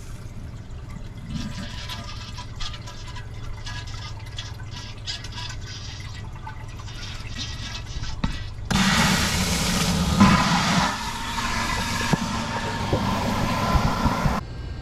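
Dometic 8740 macerator toilet flushing: water runs into the bowl with a steady low hum, then about nine seconds in the macerator pump motor starts with a louder churning run and cuts off just before the end.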